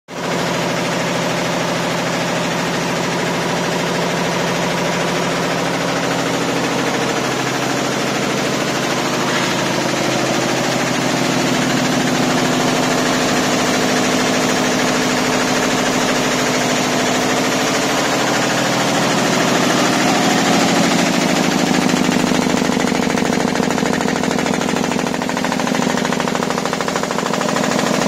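Multi-needle quilting embroidery machine with 64 needles, running at 1000 rpm, stitching in a fast, steady mechanical rhythm.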